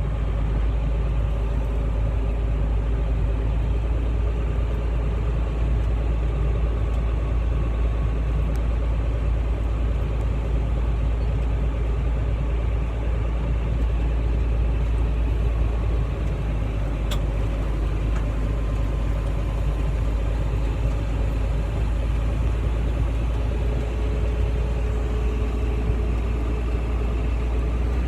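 Steady low drone of a John Deere 9220 four-wheel-drive tractor's engine running, heard from inside its cab.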